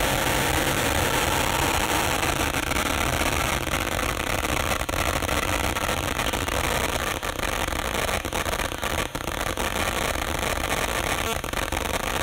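Dense electroacoustic noise drone: a steady mass of low rumble and high hiss with a faint held tone inside it, thinning briefly a few times.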